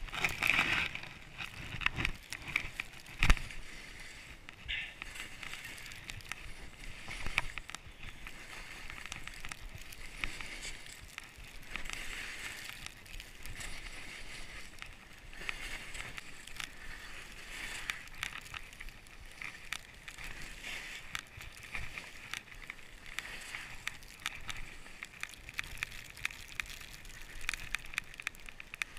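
Skis sliding and turning through snow: a steady hiss that swells every few seconds, with a few sharp knocks in the first several seconds, the loudest about three seconds in.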